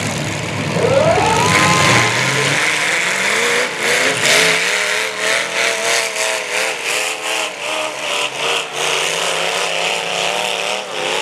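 Demolition derby cars' engines revving hard, one climbing sharply in pitch about a second in, then several engines holding high revs with a wavering, pulsing tone.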